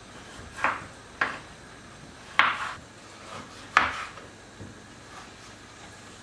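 Kitchen knife cutting through chunks of beef heart and knocking down onto a wooden cutting board, four separate knocks at uneven intervals.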